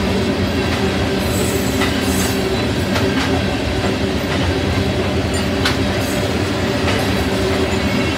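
Loaded ethanol tank cars of a freight train rolling past, with a steady rumble of steel wheels on rail and irregular sharp clicks as the wheels pass over rail joints.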